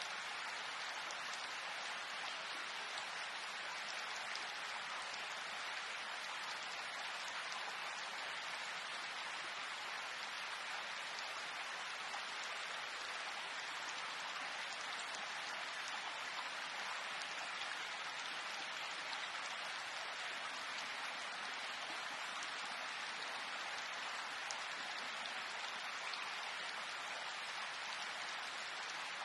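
Steady rain, an even hiss of many small drops that holds at one level throughout.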